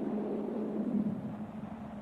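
A steady low drone with a soft rushing hiss over it, dipping slightly in level near the end.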